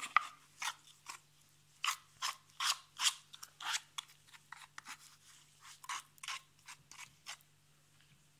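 A teaspoon scraping and scooping wet cement mix, knocking against a plastic tub and a cut aluminium beer can as the cement is packed against the can's inside walls. A run of short scrapes, about two a second, stopping about a second before the end.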